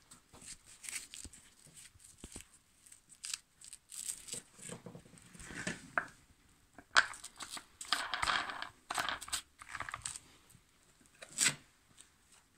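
Irregular handling noises, rustling and scraping with a few sharp clicks, as a hook-and-loop backing pad is threaded onto the spindle of a switched-off angle grinder. The grinder is not running.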